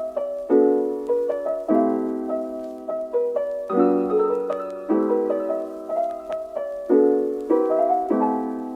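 Background music: a gentle piano melody with chords struck about once a second, each note fading away.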